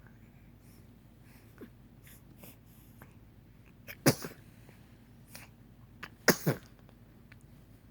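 Two sneezes about two seconds apart, the second one with a quick double burst.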